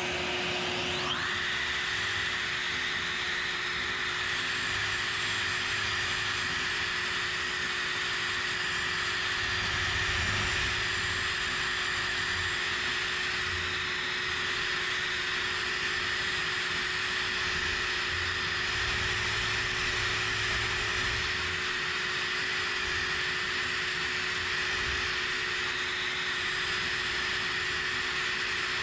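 Shop vacuum running steadily while a DeWalt 5-inch electric sander spins up with a rising whine about a second in, then runs steadily, sanding rough wood with the vacuum drawing dust through its shroud.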